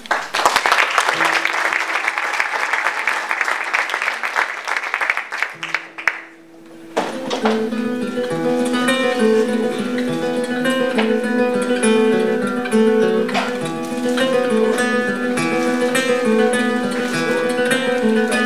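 Audience applauding for about six seconds, then a flamenco guitar starts playing: separate picked notes with a few sharp strummed chords.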